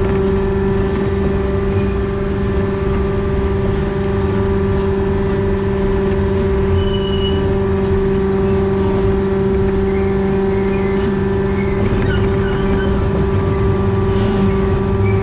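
Diesel engine and hydraulic transmission of a converted narrow-gauge steam locomotive running steadily while the train is under way, heard from the cab, with a strong steady tone over a low rumble.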